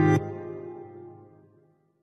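Background music that cuts off shortly after the start, its last notes dying away within about a second, followed by silence.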